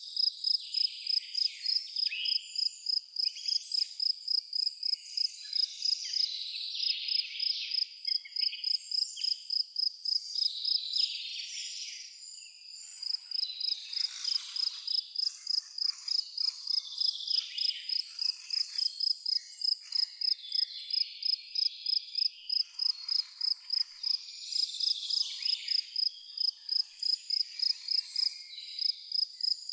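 An insect chirping in a steady, rapid, evenly spaced high-pitched rhythm, breaking off briefly near the middle, over a background of other insect and animal calls.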